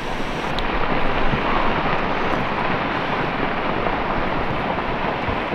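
Ice avalanche coming off a glacier icefall: a steady rushing roar of falling ice and debris, swelling slightly about a second in.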